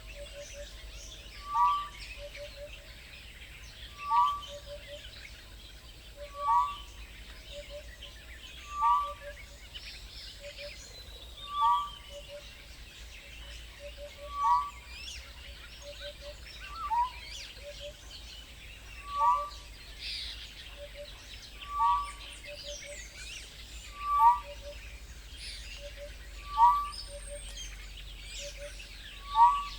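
Wild birds calling: one loud, short, falling whistled call repeats at a steady pace about every two and a half seconds, over a constant background of many small birds chirping and twittering.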